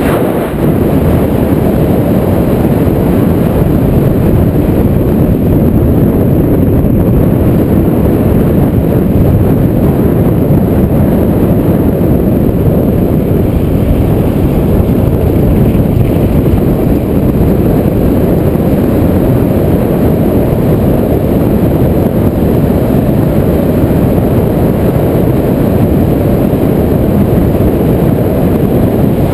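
Steady, loud rush of wind buffeting a GoPro action camera's microphone as the bike moves along the road at speed.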